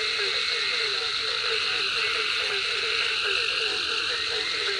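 A chorus of frogs calling at night by a pond: many short croaking notes, about four or five a second, over a steady high-pitched drone.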